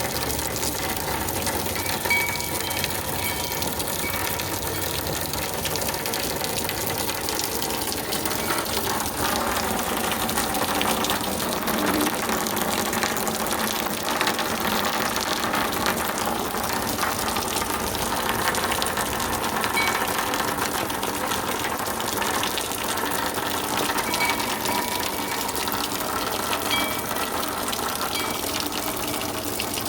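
Heavy rain pouring down, a steady rushing hiss of water.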